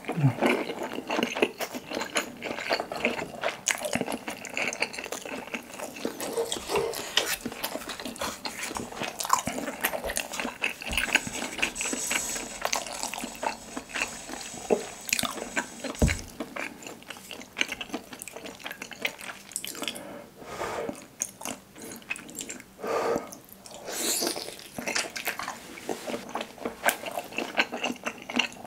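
Close-miked eating of broth-soaked skewered fish cakes (eomuk): wet chewing and mouth sounds in a steady, irregular run of small clicks and squelches.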